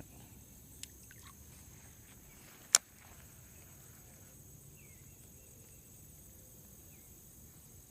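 Faint steady high-pitched insect buzzing, with one sharp loud click nearly three seconds in and a smaller click about a second in; a few faint short chirps follow later.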